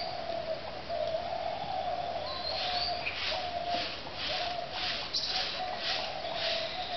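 Broom sweeping leaves on a dirt path: a run of rhythmic scratchy swishes, about two a second, starting about a third of the way in. A bird calls steadily in the background.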